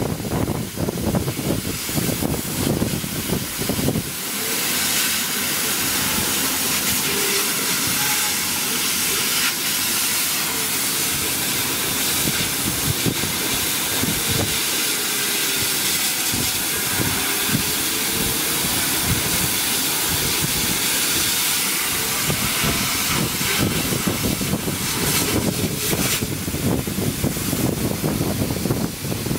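A 150 W CO2 laser cutting machine cutting plywood: a steady hiss of the air assist blowing through the cutting nozzle. There is a rougher low rumble in the first few seconds and again near the end, with a smoother hiss in between.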